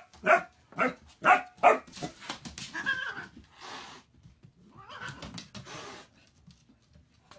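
A German Shepherd puppy gives about five quick, sharp barks. A cat answers with a short yowl and two hisses.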